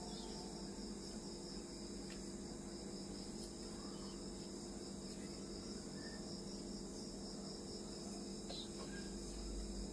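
Crickets trilling steadily as a high, even pulsing, over a low steady hum.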